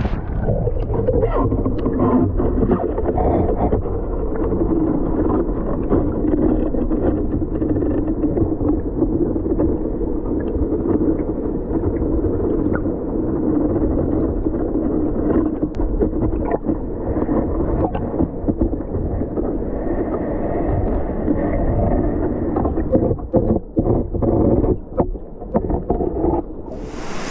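Muffled, steady rush of stream water with scattered clicks and knocks, dull and lacking any high end. It becomes choppier over the last few seconds.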